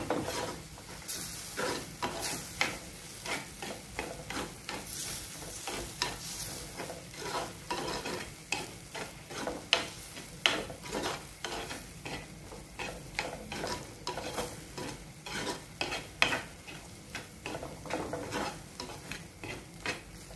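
A metal spoon stirring and scraping thick onion-tomato masala around a black chatti pot, in irregular strokes about one or two a second, over a steady sizzle. The masala is frying in ghee, loosened with beef stock and stirred so it does not stick while its raw spice smell cooks off.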